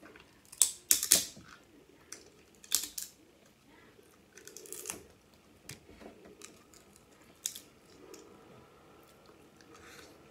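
Snow crab leg shell cracking and snapping as it is bitten and pulled apart, with a few sharp cracks, the loudest about a second in and more around three, five and seven seconds, between softer chewing sounds.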